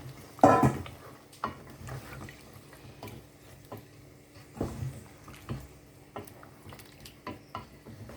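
Utensils and a pot clinking and knocking as the stew is worked: a run of short knocks and clicks, the loudest about half a second in and another near the middle.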